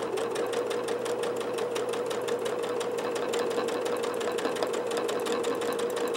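Domestic sewing machine running steadily during free-motion quilting, stitching back over the same circle of dense stitches: a steady hum with a fast, even ticking of the needle strokes.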